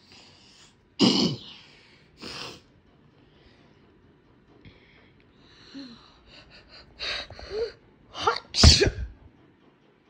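A person's voice giving two short sharp bursts, then a string of quick in-breaths building up to a loud sneeze near the end.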